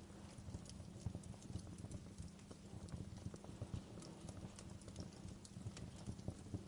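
Wood fire burning in a fireplace, crackling with irregular sharp pops and snaps over a low steady rumble of flames.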